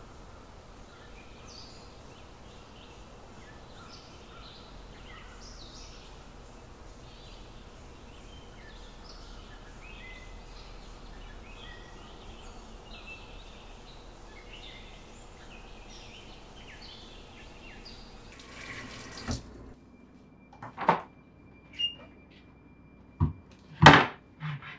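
Birds chirping over a steady outdoor hiss. The hiss cuts off suddenly near the end and gives way to a quiet room with a handful of sharp knocks and bangs; the loudest comes just before the end.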